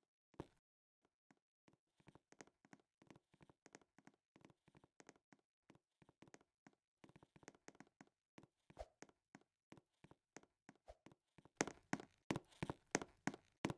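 Faint, irregular clicks and taps, a few a second, growing louder and busier near the end.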